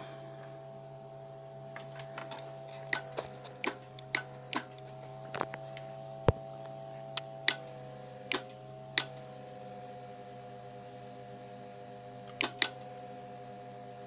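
Steady electrical hum with a higher, slightly wavering whine from a running HF linear amplifier setup. From about two seconds in, a dozen irregular sharp clicks sound over it.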